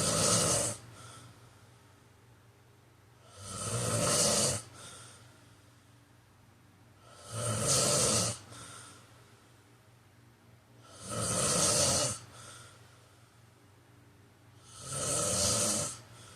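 A man snoring loudly and regularly, a breath about every four seconds. Each snore builds up over about a second and cuts off sharply, followed by a faint short puff of breath.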